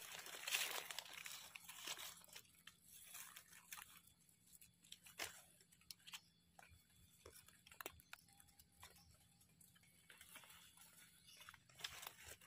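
Faint rustling and crunching of dry leaf litter and soil, with scattered small clicks and snaps, as hands dig around and pull mushrooms from the ground.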